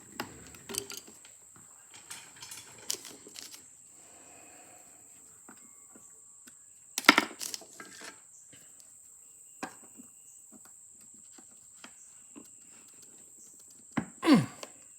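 Small metal clicks and clinks of hand tools working on a phonograph's governor while a tight screw is freed, with a sharp knock about seven seconds in and a brief sound sliding down in pitch near the end.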